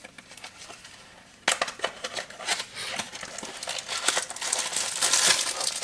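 Packaging being opened by hand: faint handling at first, then, from about a second and a half in, a plastic poly bag crinkling and rustling steadily, growing louder toward the end.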